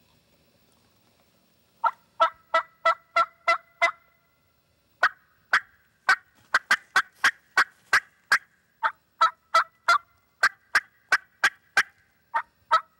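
Hen turkey cutting imitated on a diaphragm mouth call, the excited call of a hen. After about two seconds of quiet come sharp, short, high notes at about three a second, in fast runs with a brief pause about four seconds in.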